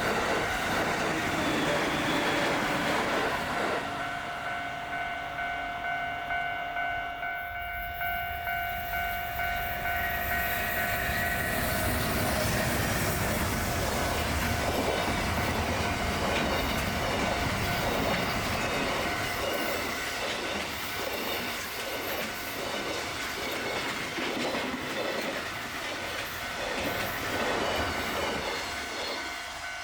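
Freight train passing over a level crossing, its wheels clacking in a fast, even rhythm over the rail joints from about halfway in. The crossing's warning bell rings as steady tones in the first half.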